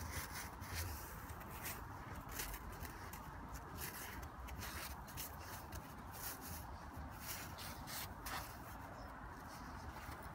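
Golden retriever rolling and wriggling on its back in icy, crusted snow: irregular crunching and scraping of fur and body against the frozen snow, several scrapes a second.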